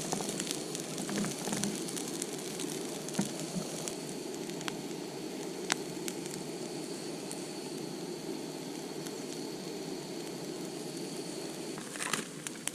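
Steady sizzling hiss with scattered crackles and pops, as of something cooking or burning over heat.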